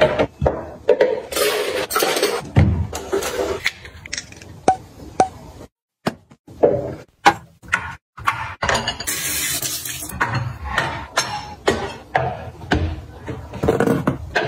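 Kitchen organisers being handled and set down on counters: a string of clicks, knocks and light clatters of plastic and metal, with rustling in between and a short hiss about nine seconds in.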